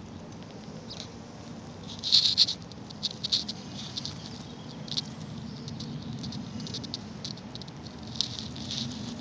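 Soft, irregular rustling and crackling right at the microphone as it moves low through grass, in short clusters, loudest about two seconds in and again near the end, over a steady low rumble.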